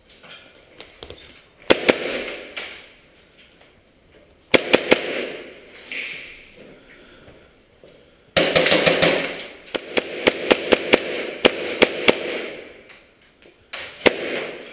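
Airsoft guns firing in several bursts, with the longest run of rapid shots in the second half, each group echoing off the bare walls and hallways of an empty building.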